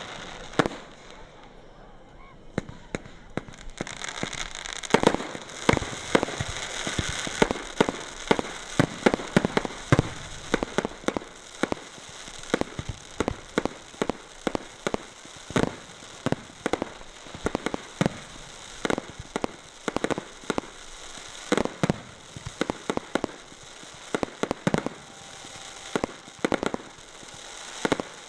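Fireworks display: a rapid, continuous string of shell bursts and reports, several a second. A dense crackling hiss rides over them from about four to eight seconds in.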